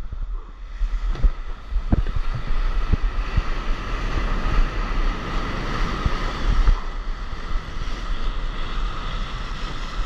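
Surf and water rushing around a stand-up paddleboard riding a breaking wave, with wind buffeting the microphone and a few sharp knocks of splashing water.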